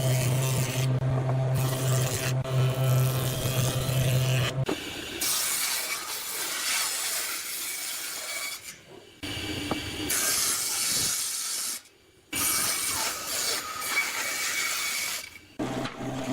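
Woodworking power tools in a run of short clips: a machine running with a steady low hum for the first four or so seconds, then noisy stretches of cutting or sanding, each ending in an abrupt cut.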